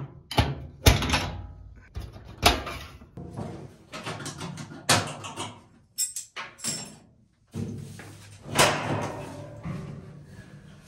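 Sheet-metal panels of a Whirlpool top-load washer's cabinet being handled: a series of about seven sharp knocks and clunks, some ringing briefly, as the console and hinged top are worked loose and lifted. Faint background music runs underneath.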